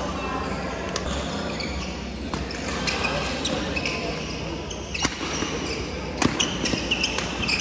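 Badminton doubles rally in a large hall: several sharp racket hits on the shuttlecock, with shoes squeaking briefly on the court floor and voices in the background.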